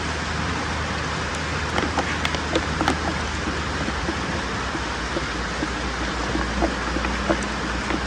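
Water poured from a plastic bottle into a wok of thick chicken curry, splashing into the sauce over a steady hiss, with a few light clicks about two to three seconds in.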